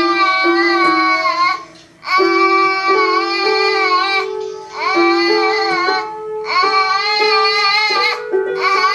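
A baby pressing keys on an electronic keyboard, sounding single held notes that change pitch now and then, while singing along in a string of long, wavering high-pitched calls with short breaks between them.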